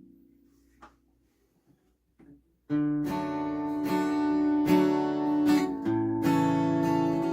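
Acoustic guitar: a single faint note fades out, then steady strummed chords start about three seconds in and carry on.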